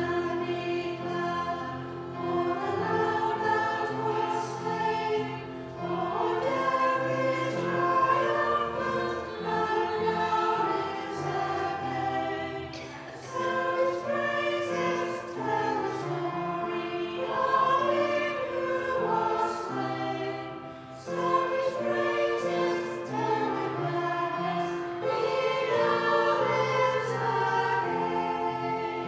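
A small choir singing a hymn in parts with piano accompaniment, in phrases with short breaks between lines.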